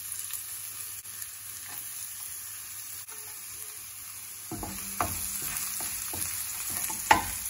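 Diced red onion and garlic sizzling in coconut oil in a non-stick frying pan, a steady high hiss. From a little past halfway a wooden spatula stirs and scrapes the pan in short strokes, with one sharp clack near the end.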